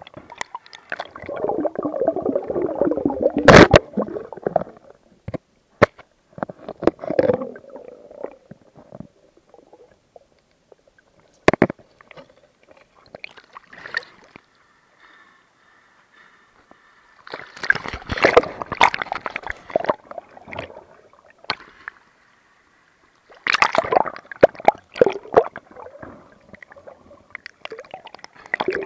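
Water sloshing and gurgling around a swimming diver in irregular bursts a few seconds long, separated by quiet gaps, with a few sharp clicks.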